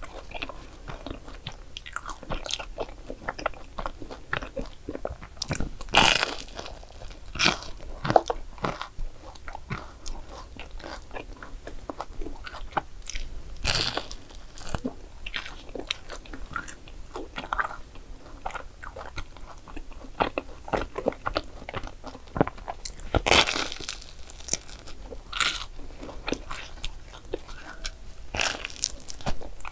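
Biting and chewing crisp croffles (croissant waffles) topped with whipped cream and chocolate: a steady run of crackly crunches, with louder bites every several seconds.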